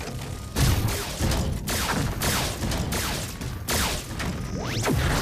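Animated-cartoon destruction sound effects: a rapid string of heavy crashes and explosions as objects smash into pavement, with a rising laser zap near the end.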